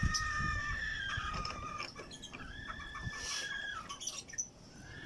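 Roosters crowing in the background: long, drawn-out crows one after another, with soft handling knocks underneath.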